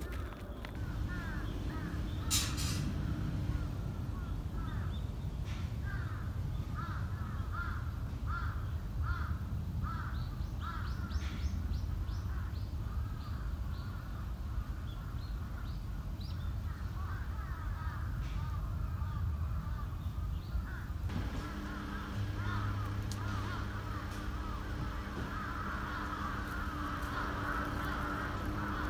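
Birds calling outdoors, short calls repeated in quick runs, with a steady low hum coming in about two-thirds of the way through.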